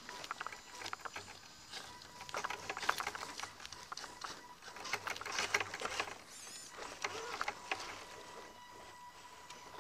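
Scale RC rock crawler driving over dirt and rock, heard from a camera mounted on the truck: the electric motor and geared drivetrain whirring, with irregular crunching and rattling from the tyres and chassis.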